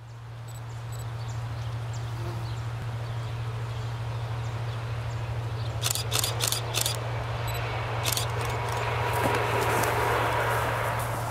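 A diesel locomotive running light on the distant line, its engine a steady low drone, with a quick run of sharp clicks about six seconds in and two more about eight seconds in as it passes. Faint birds or insects chirp over it.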